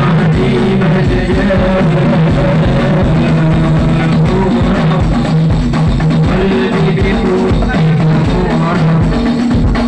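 Hadrah ensemble performing: Indonesian frame drums (rebana) and a bass drum keep a steady, driving beat under voices singing an Islamic devotional song (sholawat) through microphones.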